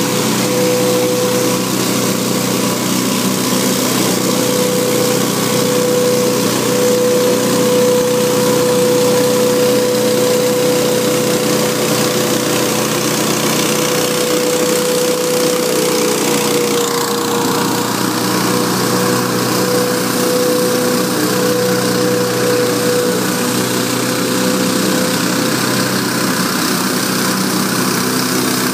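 Hurricane 314 stand-on leaf blower running steadily while blowing leaves: a small gas engine's drone mixed with the rush of air from the blower fan, carrying a steady high hum. The pitch dips briefly a little past halfway, then holds steady again.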